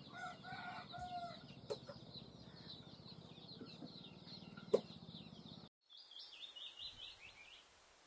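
Faint, busy high chirping of small birds, with a chicken clucking softly in the first second or so. A single sharp click comes just before five seconds in.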